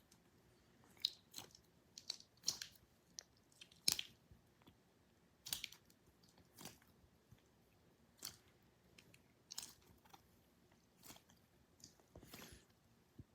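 Squishy foam toys being handled and squeezed, giving short, irregular rustling crackles about once a second.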